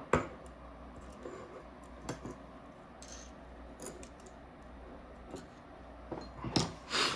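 Scattered small clicks and light taps of a small screwdriver, tiny screws and a microswitch being handled during disassembly of a paintball marker's trigger frame. There is a sharper click just after the start and a cluster of louder clicks and a brief scrape near the end.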